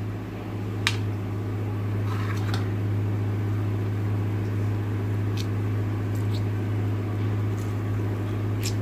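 A steady low electrical hum, like a fan motor, with a few sharp little clicks as fingers pick lemon seeds out of the juice on a steel plate.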